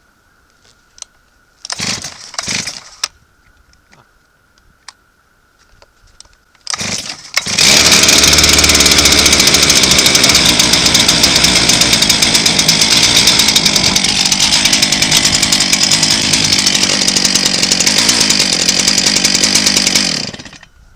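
Two-stroke chainsaw being pull-started cold: a couple of short pulls that don't catch, then the engine catches about seven seconds in and runs loud and steady for about twelve seconds before cutting off abruptly near the end.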